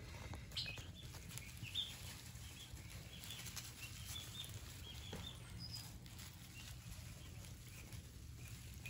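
Young turkey poults peeping softly: scattered short, high chirps over a low steady hum.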